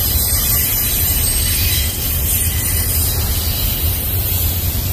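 Union Pacific double-stack intermodal freight train rolling past, a steady noise of its well cars' wheels running on the rails.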